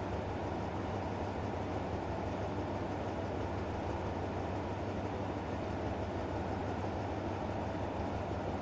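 Diesel locomotive idling at a standstill: a steady low engine drone under a constant hiss, with no change in pitch or level.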